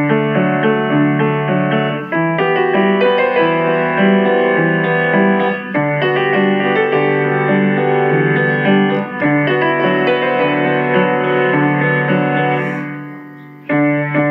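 Piano music, many notes played together and in quick succession. It fades out near the end, then starts again suddenly.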